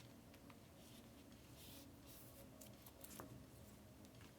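Near silence, with a few faint rustles and light clicks of trading cards being handled, one sharper click about three seconds in.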